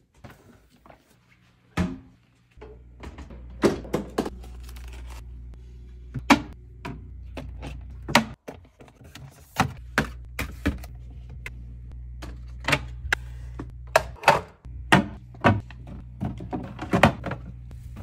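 Food containers and clear plastic bins being set down on refrigerator shelves: a run of irregular knocks and clunks over a steady low hum.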